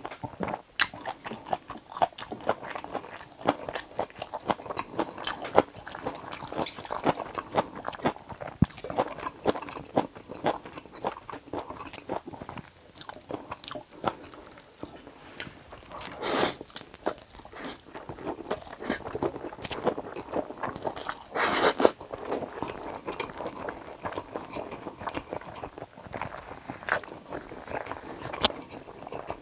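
Close-miked chewing and mouth sounds of a person eating Chapagetti black-bean instant noodles: a steady run of irregular wet clicks and smacks. Two louder, half-second rushes of sound stand out about 16 and 21 seconds in.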